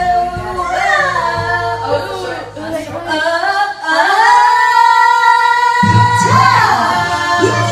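A woman singing karaoke loudly into a microphone over a backing track with a steady bass line. She holds one long note for about two seconds past the middle.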